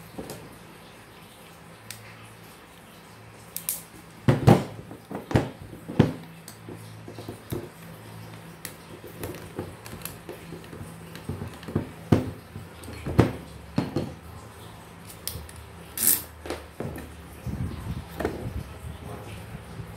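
Electric fan motor being taken apart by hand: irregular clinks, knocks and scrapes as the metal motor housing, rotor and screwdriver are handled and set down. The loudest knocks come about four and a half seconds in, around twelve to thirteen seconds, and about sixteen seconds in.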